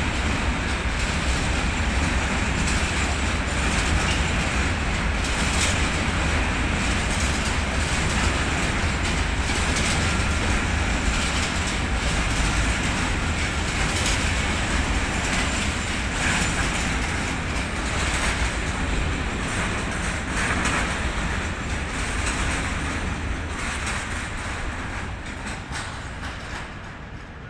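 Container freight train's flat wagons rolling past on the rails, a steady loud rumble of wheels and wagons that fades near the end as the last wagons pull away.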